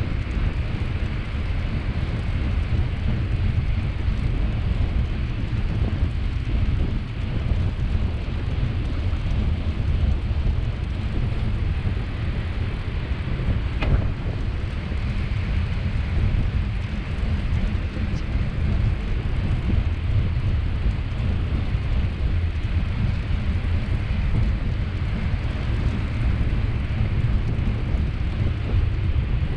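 Steady low rumble of wind buffeting the microphone of a camera riding on a moving bicycle, with one brief click about halfway through.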